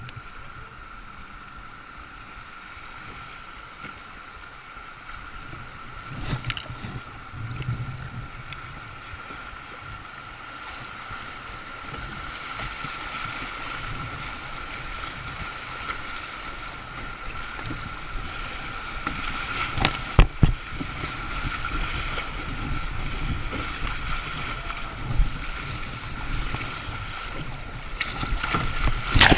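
River water rushing and splashing around a whitewater kayak, with wind buffeting the microphone; it grows louder over the second half, with a few sharp knocks about two-thirds of the way in.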